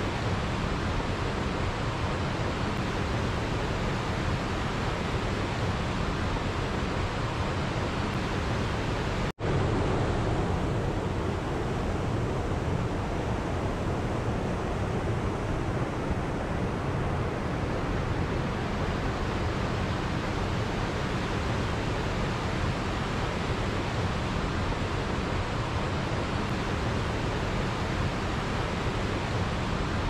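Waterfall and mountain stream rushing steadily over rocks. About nine seconds in, the sound cuts out for an instant and then resumes.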